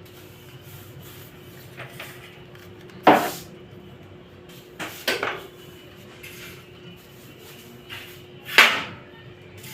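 A person sneezing three times, a few seconds apart, from a dust allergy.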